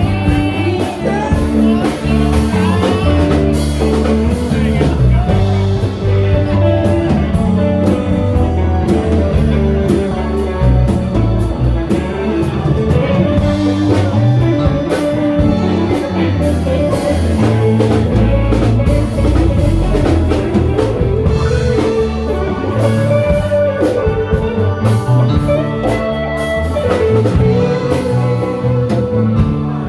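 A live band playing bluesy music, with guitar prominent.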